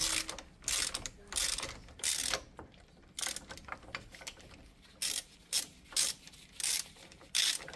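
Hand ratchet clicking in short, irregular strokes, about one or two a second, as it winds a bearing removal tool that presses a seized steel wheel bearing out of an aluminum steering knuckle, the bearing stuck fast by salt corrosion.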